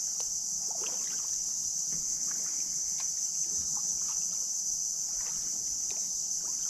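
Steady high-pitched insect buzzing, with faint drips and splashes from a kayak paddle dipping in the water now and then.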